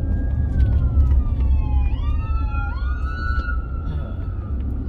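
An emergency vehicle's siren wailing, its pitch sliding slowly down, then sweeping back up twice about two seconds in, heard from inside a moving car over the steady road rumble.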